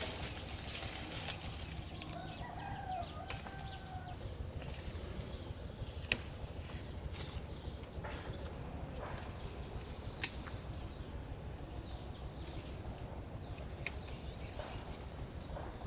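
Faint farmyard background with a short bird call, likely a chicken, about two to four seconds in, a thin steady high-pitched whine and two sharp clicks.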